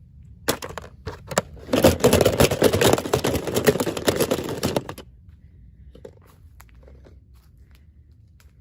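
Toy packaging being handled and opened by hand: a few sharp clicks, then about three seconds of dense rustling that stops suddenly, followed by a few faint knocks.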